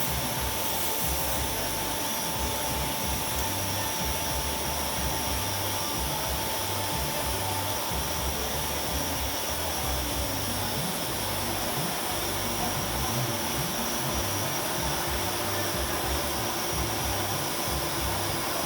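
Lathe running steadily: a continuous motor whir with a thin, constant high whine.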